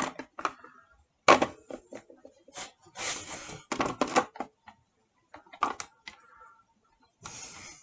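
Hands handling an RC pickup truck and its box packaging: irregular clicks and knocks, with two brief stretches of rustling, one about three seconds in and one near the end.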